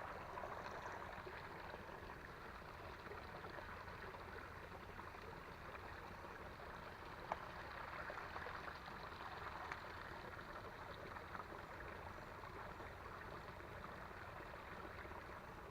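Small creek's water running steadily, with one faint click about seven seconds in.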